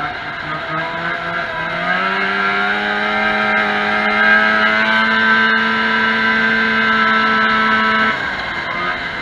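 Vintage 340-class two-stroke snowmobile engine heard from on board, winding up in pitch over the first two seconds and then held at high revs down the straight. About eight seconds in the engine note drops away abruptly as the throttle is closed.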